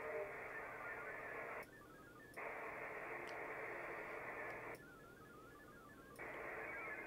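VARA HF digital data signal from an HF transceiver, faint and hissy, in long bursts cut off above about 2.7 kHz. Twice it drops out, and in those gaps faint chirping tones can be heard. It is the modem trading packets while it negotiates a connection.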